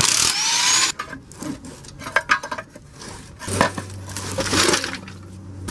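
Air-powered wrench spinning out a 17 mm bell-housing bolt for about a second, its whine rising in pitch, then metallic clinks and knocks of the bolt and tools being handled.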